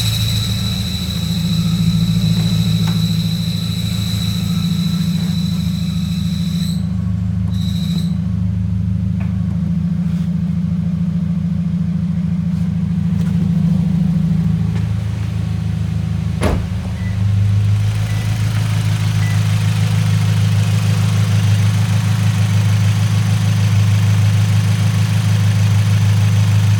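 Scion FR-S's 2.0-litre flat-four idling on a cold start with a steady high-pitched whine from a failing clutch throwout bearing. About seven seconds in the whine stops, comes back for a moment and stops again, as it does when the clutch pedal is pressed; a single sharp click comes past the halfway point while the engine keeps idling.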